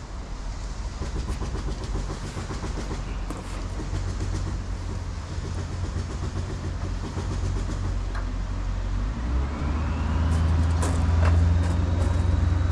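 A low, steady mechanical rumble, like a large engine running, that grows louder about four seconds in and again near the end, with a few light metallic clicks from hand work on the engine's front end.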